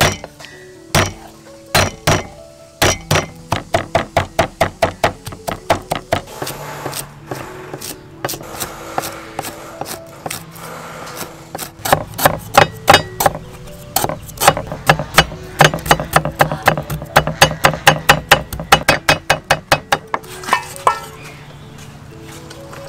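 Steel cleaver chopping garlic and herbs on a thick wooden chopping block: a few single chops, then quick runs of repeated chops, loudest in the middle stretch, with background music underneath.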